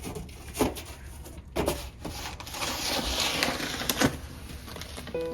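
Snow shovel scraping through snow, with about three sharp knocks of the blade and a longer scrape in the middle.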